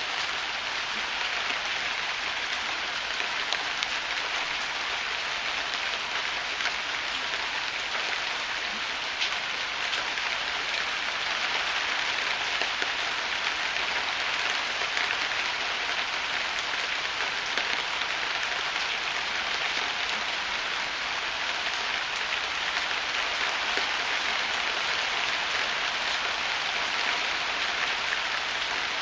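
Heavy rain falling steadily: a dense, even hiss with faint scattered drop ticks.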